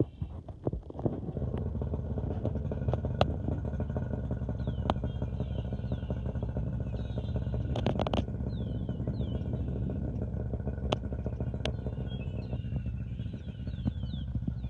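An engine running steadily, coming in about a second in, with a few sharp clicks over it.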